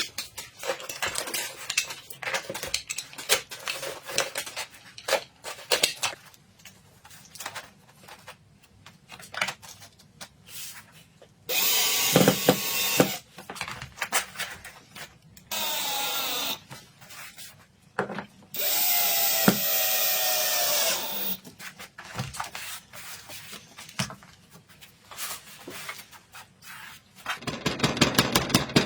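Handheld electric drill running in three short bursts, its motor whine rising and then holding, with knocks and handling clicks between the bursts and a quick run of clicks near the end.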